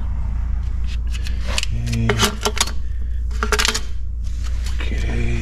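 Packaged metal parts being handled out of a shipping crate: crinkling packaging and light metal clicks in two short flurries, over a steady low hum.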